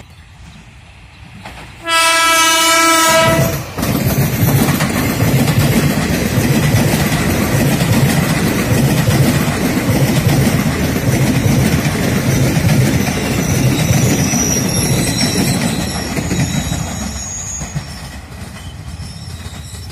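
Ex-JR 203 series electric commuter train sounding one horn blast of nearly two seconds, about two seconds in, then passing close by with loud, steady wheel and running noise on the rails that dies away near the end.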